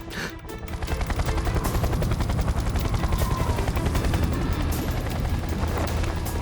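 Cartoon rescue helicopter's rotor sound effect: a fast, steady chopping that builds up over about the first second and then holds.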